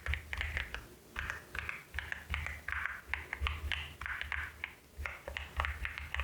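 Keys on a LEOBOG HI75 mechanical keyboard with Nimbus V3 switches being pressed one after another, irregular clacks several a second with a deep thud under each, sounding like ceramic.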